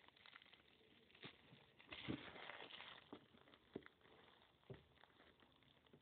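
Faint handling noise of a hand-held phone and book: scattered small clicks and knocks, with a brief rustle about two seconds in.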